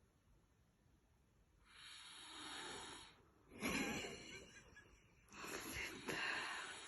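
A person snoring: three loud, rasping breaths of about a second and a half each, the middle one the loudest with a low rattle in it.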